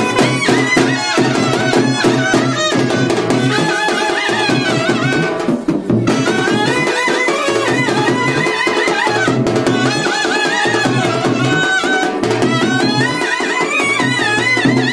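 Clarinet playing a South Indian devotional song melody, ornamented with slides and wavering bends, over a percussion accompaniment. The melody breaks off briefly about six seconds in, then carries on.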